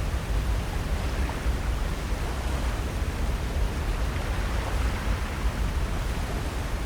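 Steady coastal ambience: a constant wash of ocean surf with wind rumbling on the microphone, no distinct events.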